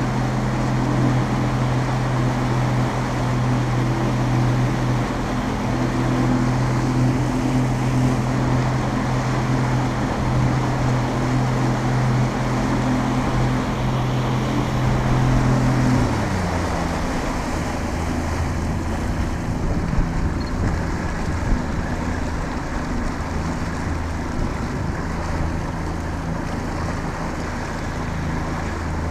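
Small boat's outboard motor running steadily under way, with wind and water rushing past. A little past halfway the engine note drops lower as it is throttled back.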